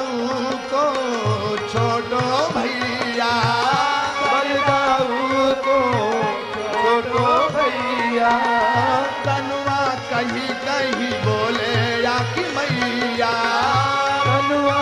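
Devotional aarti music: tabla keeps a steady beat under a wavering, winding melody line.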